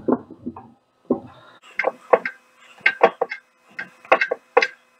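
Steel hex key clicking in and against a socket-head screw on a mini lathe as the screw is turned out in short strokes: a run of sharp, irregular clicks, several a second, starting about a second in.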